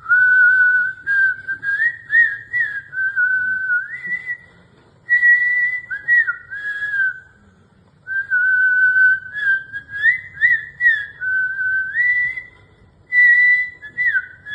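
A person whistling an imitation of the wedge-tailed green pigeon's call: a clear whistle that steps and slides up and down between two notes, in two long phrases with a short break about halfway.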